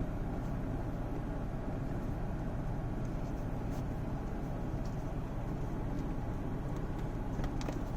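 Steady low rumble of the Toyota Prado's V6 engine idling, with a few faint clicks from a trim panel being screwed back on.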